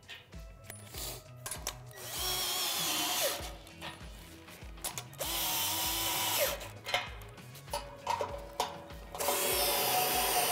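Cordless power drill with a socket bit running nuts down onto the anchor J-bolts of a steel pole base plate. It runs in three bursts of one to two and a half seconds, with a thin whine, and there are small clicks of the socket and metal hardware in between. Soft background music with a steady beat plays underneath.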